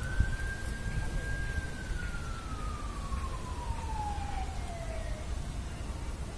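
A distant siren's single wail: it rises quickly, holds briefly, then falls slowly over about five seconds and dies away. A steady low rumble runs underneath.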